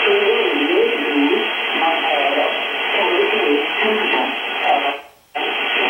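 Royal Air Force Volmet shortwave weather broadcast on 5450 kHz, received in upper sideband on a software-defined radio: a voice reading aviation weather, thin and band-limited over steady static hiss. The signal drops out abruptly for a moment about five seconds in.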